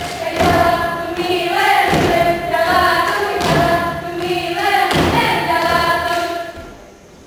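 Saman dancers chanting in unison while beating out the rhythm with hand claps and slaps on their bodies, about two beats a second. The chant and beats die away near the end.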